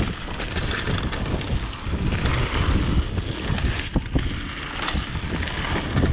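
Wind rushing over the microphone of a mountain bike's rider coming fast down a trail, with tyres rolling on dirt and several sharp knocks and rattles from the bike over rough ground.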